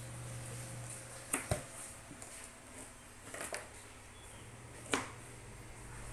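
Sharp little plastic clicks and snips as scissors cut open the seal on a soy sauce bottle's cap and the cap is worked open: a pair of clicks a little over a second in, another pair about two seconds later, and a single click near five seconds, over a faint steady low hum.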